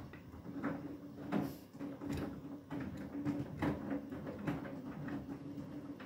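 Beko WTK104121W front-loading washing machine drum turning during a rinse, with a steady motor hum and wet laundry and water sloshing and thudding inside the drum about seven times, at irregular intervals.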